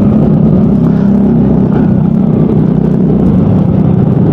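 A Yamaha Mio Gravis 125 cc scooter's engine running steadily while being ridden, its pitch rising and easing off slightly about a second in.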